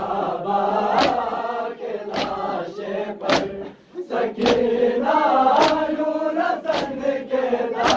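A crowd of men chanting a noha together, with a sharp slap of hands striking bare chests in unison about once a second, keeping time with the chant (matam). The chant breaks off briefly about halfway through.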